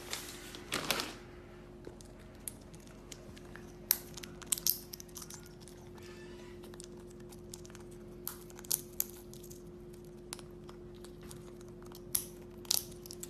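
African grey parrot cracking and chewing seed treats in its beak: scattered sharp cracks and crunches over a steady low hum.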